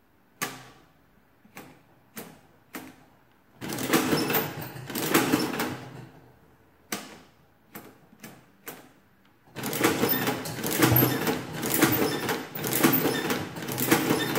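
Victor manual adding machine: number keys clicked down one at a time, then its hand crank worked so the adding and carry mechanism clatters through its cycle. It goes four key clicks, a stretch of clattering, four more key clicks, then a longer run of repeated cranking near the end, multiplying by repeated addition.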